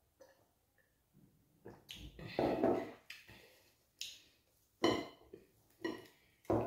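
Close-miked eating sounds: a longer breathy sound about two seconds in, just after a drink of water. It is followed by four short, sticky clicks as fingers tear and pinch soft wheat fufu dough.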